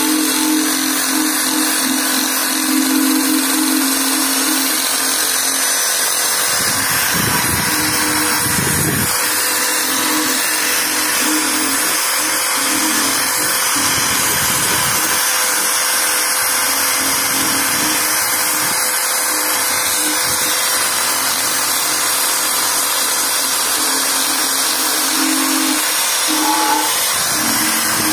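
Corded electric drill spinning a wire cup brush against a steel motorcycle fuel tank, stripping paint: a steady motor whine mixed with the scratchy hiss of the wire bristles on metal, without a break.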